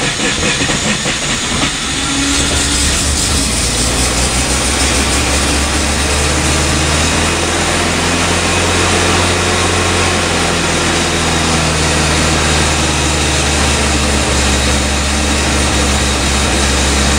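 Mazda 12A two-rotor Wankel rotary engine in a 1984 RX-7, freshly rebuilt, starting up on the choke. It is uneven for the first couple of seconds, then settles into steady running.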